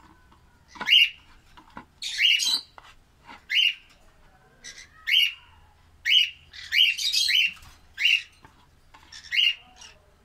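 Caged pet parrots calling: about a dozen short, sharp, high calls in quick succession, a few bunched together in the middle.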